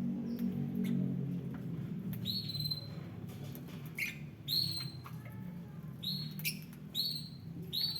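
Lovebirds giving short, high-pitched chirps, about seven of them, starting about two seconds in.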